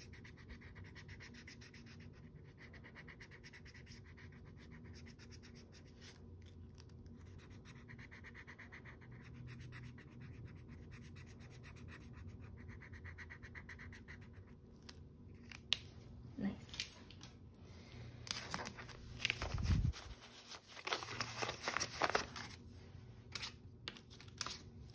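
Faint scratching of a felt-tip marker on paper as squares are coloured in. In the last third it gives way to light taps, a soft thump and rustling of paper and banknotes being handled.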